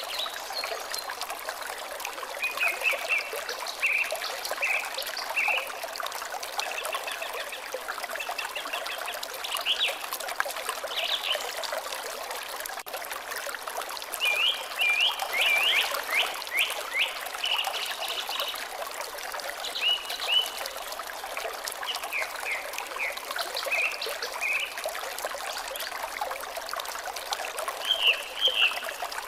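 Water trickling steadily, with birds singing short chirping phrases every few seconds over it.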